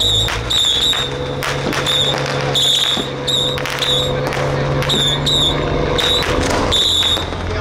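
Firecrackers going off in irregular sharp cracks, mixed with short, high whistling tones that repeat throughout, over a steady low hum.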